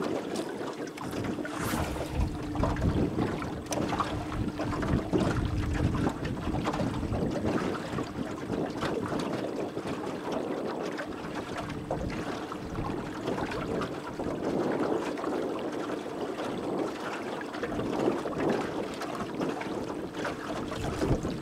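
Wind buffeting the microphone and water noise from a small fishing boat moving across the lake, under a steady low hum. The wind rumble is heaviest in the first few seconds.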